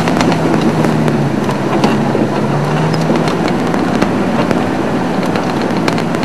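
Open safari vehicle's engine running with a steady low hum as it drives along a rough dirt track, with many small clicks and knocks scattered through it.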